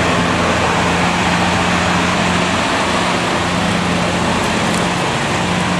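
Engine of a wheeled police armoured vehicle running as it drives slowly past close by: a steady low engine drone under a broad even hiss.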